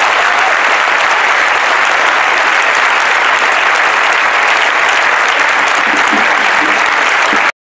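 Large crowd applauding steadily, the clapping stopping abruptly near the end.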